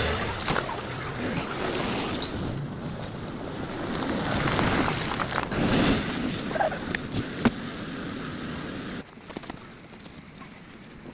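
Rushing floodwater with wind noise, with a few scattered knocks; it drops suddenly to a quieter hiss about nine seconds in.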